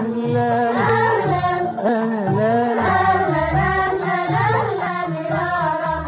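Music: a voice singing a melody over a low, repeating beat.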